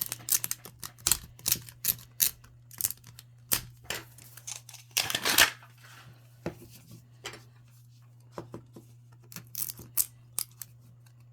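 Hard plastic Miniverse capsule balls clicking and knocking together as they are handled and sorted, with a brief rattling clatter about five seconds in, over a low steady hum.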